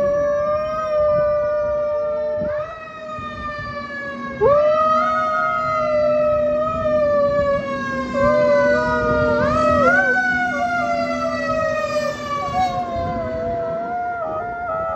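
A fire truck's siren wails, swooping up and then sliding slowly down several times, while a border collie mix howls along with long held notes.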